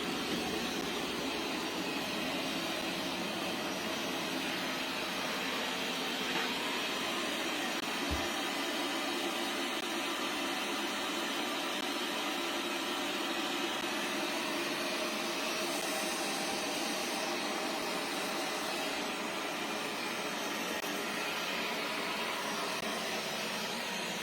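Vrillo J050 robot vacuum running, its suction motor giving a steady whirring hum, with a faint low bump about eight seconds in.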